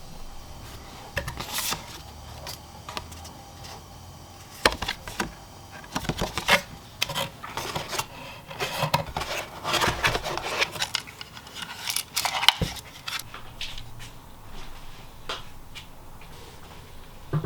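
Hands unpacking a boxed electronic device: irregular clicks and taps with bursts of rustling and rubbing of packaging, busiest in the middle.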